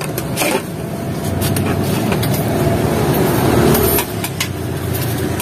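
A motor vehicle passing close by in the street, its steady engine and tyre noise building and then dropping away about four seconds in, over scattered clicks and rustling from the stall.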